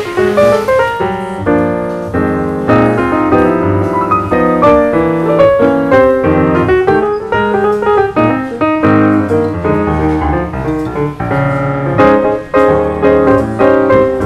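Background piano music: a continuous run of notes and chords.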